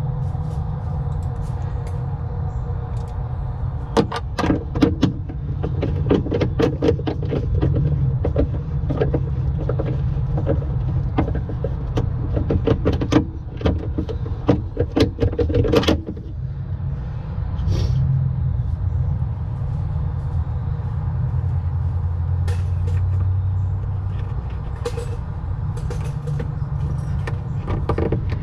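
Irregular clicks and knocks of parts and tools being handled during work on an ATV, thickest in the first half and sparse later, over a steady low motor hum.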